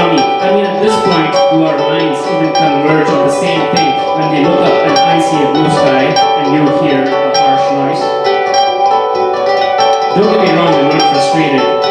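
Live solo music: a dense layer of held, ringing plucked or struck tones over a repeating low figure, with sharp bright strikes every half second or so.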